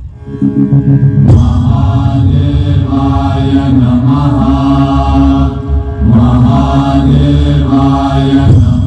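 Low chanted mantra with musical accompaniment, sung in long held notes. A new phrase begins about a second in and again about six seconds in.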